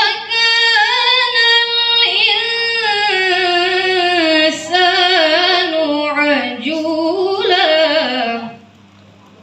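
A woman singing one long, ornamented phrase in a high voice. The pitch wavers and drifts gradually lower, and the singing breaks off about eight and a half seconds in.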